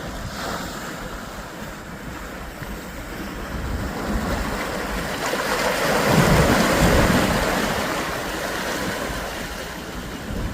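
Rushing wind and water noise, like waves washing on a shore with wind on the microphone. It swells to its loudest about six seconds in, then eases off.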